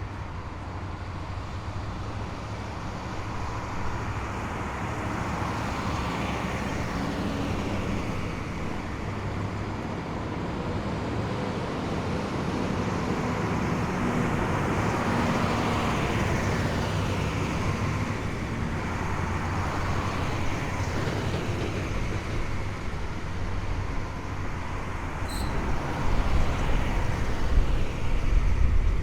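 A column of heavy military vehicles driving past on a street, engines and tyres droning steadily. Several times a whine falls in pitch as a vehicle goes by. Near the end a louder, deeper engine comes close.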